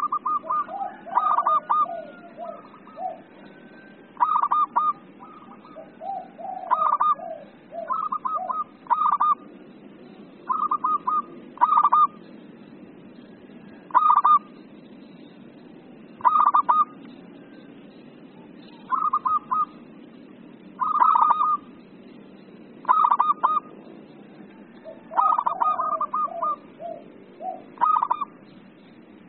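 Zebra dove (perkutut) cooing in an excited, 'emosi' manner: phrases of quick stuttering notes repeated every second or two, with some lower, softer notes between phrases.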